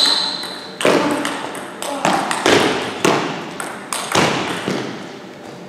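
Celluloid-style table tennis ball struck back and forth in a fast rally: sharp hits on bat and table, about one a second, each ringing out with a long echo in a large hall.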